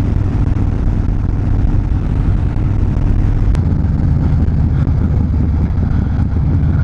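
Harley-Davidson Fat Bob's V-twin engine running steadily under the rider, with road and wind noise; the deepest part of the engine note drops back a little about halfway through.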